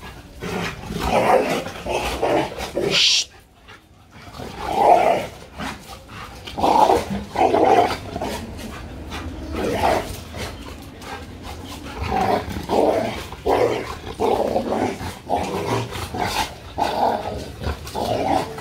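Labradors growling in short repeated bursts as they wrestle in over-excited play-fighting that is turning into a small scuffle. There is a brief lull about three seconds in.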